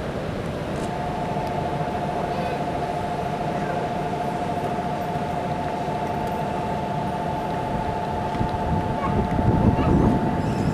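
E5 series Shinkansen train moving slowly past the platform, a steady low rumble with wind noise on the microphone that grows louder near the end. A steady two-pitched electronic tone sounds over it from about a second in until just before the end.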